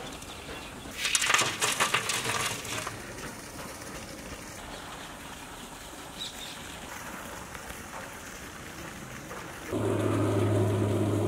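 Hot charcoal embers tipped from a pan onto the metal lid of a large biryani pot for dum cooking, rattling and crunching for about two seconds. Near the end a loud, steady low buzzing drone starts and becomes the loudest sound.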